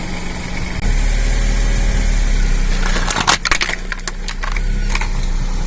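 A car running steadily, with a burst of sharp cracking and crunching about three seconds in as something brittle is crushed under its wheels.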